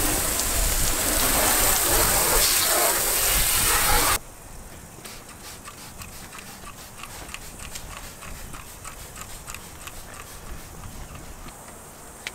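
Water from a garden hose spray nozzle hissing against an aluminum boat hull; the spray cuts off suddenly about four seconds in, leaving faint scattered ticks.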